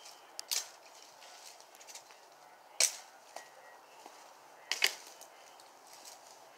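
Sharp chopping strikes of a hand tool into brush and branches: a light hit about half a second in, a loud one near three seconds, and a quick double hit near five seconds.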